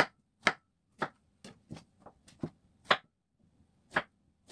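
Kitchen knife slicing through a round zucchini, each stroke ending in a sharp knock on a wooden cutting board. About ten knocks come at uneven spacing, some loud and some faint.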